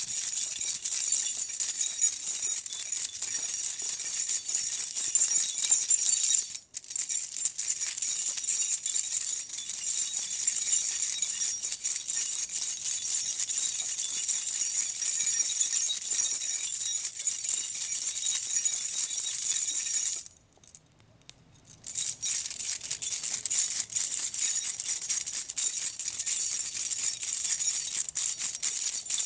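A bunch of metal keys jangling continuously as they are shaken, a dense bright jingle. It stops for an instant about seven seconds in and for about a second and a half two-thirds of the way through.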